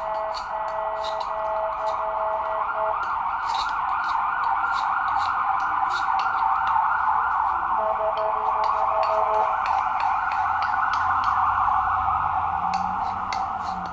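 Knife shaving and chipping a block of ice, giving a string of short sharp clicks. Under it runs a loud, steady mid-pitched whine-like drone, with stretches of rapid beeping tones near the start and again about eight seconds in.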